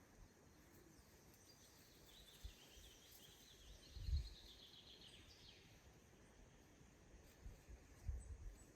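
Faint outdoor ambience in which a songbird sings a rapid twittering phrase lasting about three seconds near the middle. Brief low rumbling thumps come about four seconds in and again near the end.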